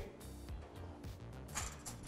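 Faint background music with low, steady notes that change in steps, in a pause between speech.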